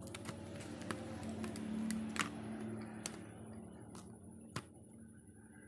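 Cracked glass touchscreen being pried off a phone's frame with a thin metal blade: a scattering of sharp cracks and clicks as the glued glass lets go, the loudest about two seconds in.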